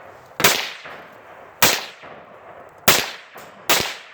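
Four gunshots fired about a second apart, each cracking sharply and then trailing off briefly.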